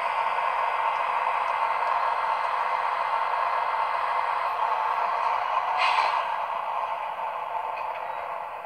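Sound decoder of an Acme E402 model locomotive playing the real E402's traction-motor cooling fans through its small onboard speaker: a steady rushing noise with a brief hiss about six seconds in, fading gradually near the end.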